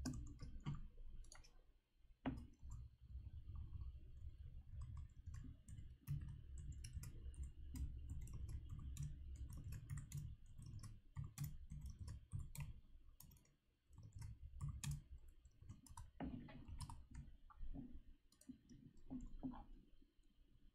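Faint, irregular clicking of a computer keyboard and mouse over a low rumble, with short pauses about two seconds in and again near fourteen seconds.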